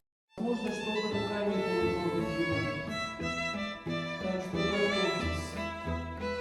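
Background music led by bowed strings, violin over cello, starting after a brief silence at the very beginning.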